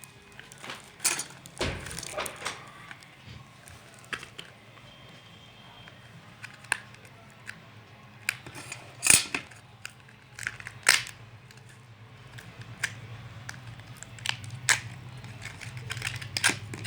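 Hands handling and opening a small bottle of cube lubricant and its packaging: scattered clicks, taps and light rustling, with two louder sharp clicks about nine and eleven seconds in.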